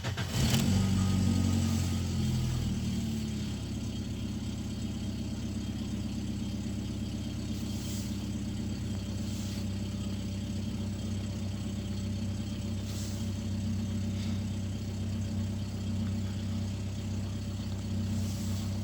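Car petrol engine just started: the revs flare and drop over the first two or three seconds, then it settles into a steady idle. The idle holds at about 900 rpm where about 800 is expected, the high idle that sets fault code P0507.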